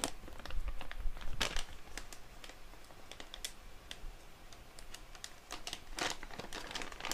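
Thin plastic bag crinkling and rustling in the hands as it is opened, with scattered crackles that are a little louder about a second and a half in and again near the end.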